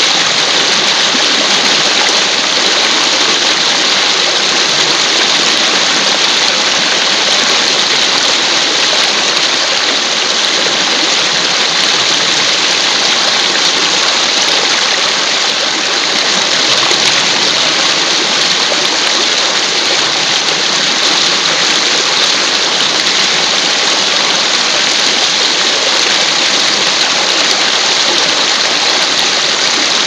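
River water pouring and splashing over rocks in a short waterfall, heard close up: a loud, steady, hissing rush.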